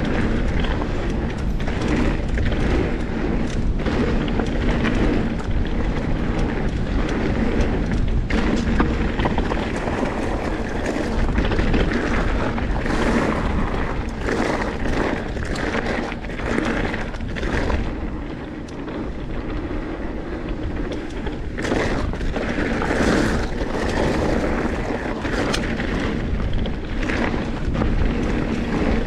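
Mountain bike riding fast over a loose gravel trail: tyres crunching and rumbling on the stones, with frequent knocks and rattles from the bike as it goes over bumps, and a deep rumble of wind on the microphone.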